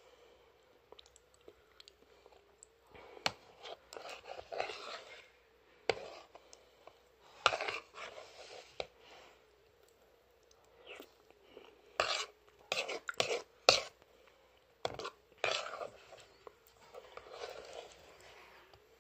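Close-up eating sounds from grape Fruche, a soft jelly-like milk dessert: wet, irregular mouth and chewing noises as spoonfuls are eaten. Sharp clicks from the metal spoon come in a quick run about twelve to fourteen seconds in.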